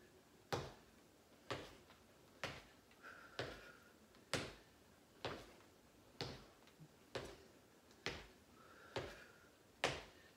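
Sneakered feet landing on a wooden floor during alternating side kicks, a short knock about once a second in a steady rhythm.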